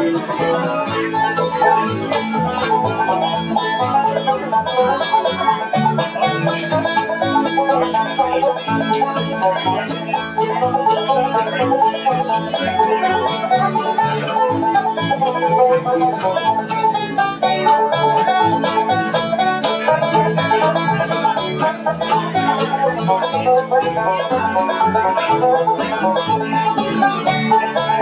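Bluegrass band playing a tune live on acoustic string instruments: acoustic guitars and upright bass with quick picked melody notes over a steady beat.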